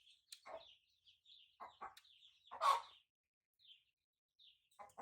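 Chickens: chicks peeping in short high notes, with a few short, lower clucking calls among them, the loudest a little over halfway through.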